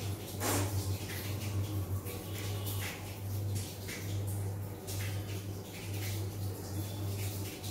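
A low, steady hum that breaks off now and then, under soft clicks and rustles of cherry tomato halves and vegetables being placed on a plate by hand.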